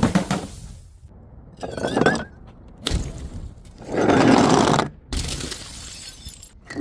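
A run of separate crashes and crunches as glass bottles and other objects are broken and crushed: a short scrape about two seconds in, a sharp impact about three seconds in, the loudest crunch about four seconds in, and another impact just after five seconds.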